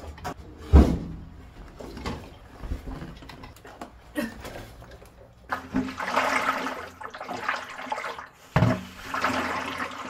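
Water sloshing inside the water-filled handle section of a Samsung top-loading washing machine's tub as it is moved, in long swishing stretches over the second half. A loud thump about a second in.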